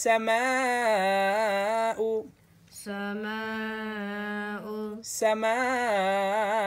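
A single voice chanting Qur'anic recitation in Arabic with long, melodically drawn-out vowels. There are three sustained phrases with a short pause after about two seconds.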